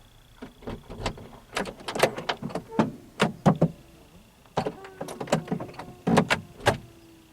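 Door locks of a 1986 Mercedes 300E (W124) being worked with the key: a run of sharp clicks and clunks in several quick clusters as the doors lock and unlock. The locks still work with the Becker alarm control unit unplugged.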